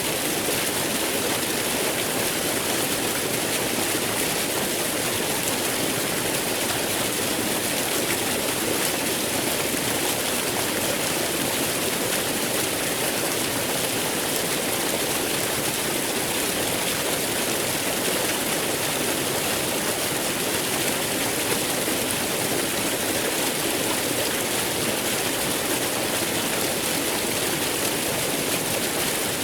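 Waterfall: water pouring and splashing in a steady rush with no let-up.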